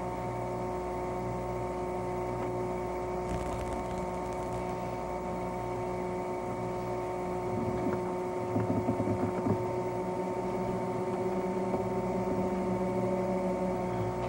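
Steady electrical hum made of several fixed tones, with a few faint knocks or shuffles about eight to ten seconds in.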